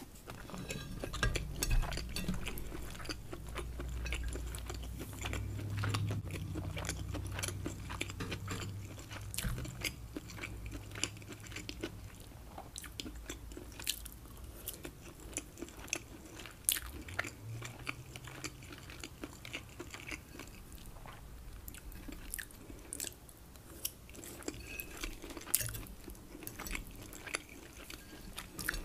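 Close-up chewing and biting of rice with shrimp and scallops: a steady run of small mouth clicks and crunches.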